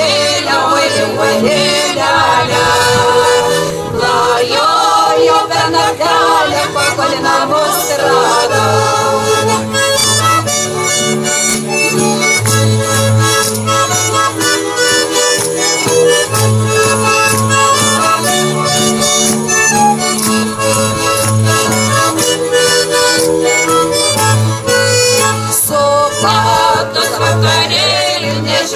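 Lithuanian folk music from two accordions over a double bass's steady low notes. Women's voices sing along in roughly the first eight seconds and come in again near the end; between them the instruments play alone.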